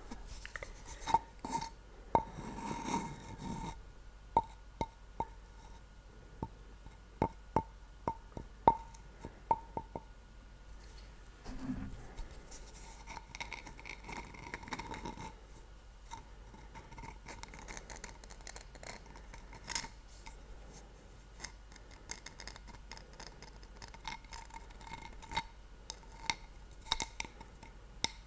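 Ceramic mug being tapped and scratched close to the microphone, many light irregular taps, some in quick runs, each ringing briefly with the mug's tone.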